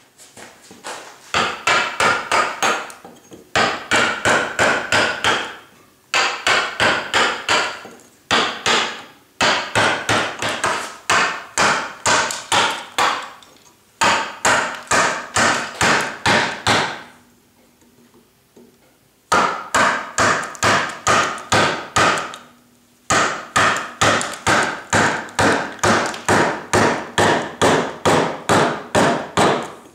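Carver's mallet striking a gouge that is cutting into limewood: runs of rapid, even blows, about two or three a second, broken by short pauses, the longest about two-thirds of the way in.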